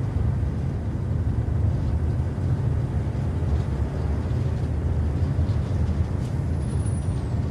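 Truck driving along, heard from inside the cab: a steady low rumble of engine and road noise.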